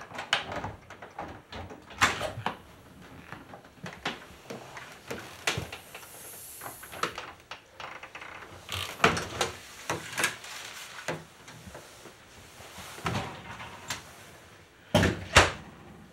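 A door being opened and someone coming in: a series of irregular knocks and clunks, with two louder knocks close together near the end.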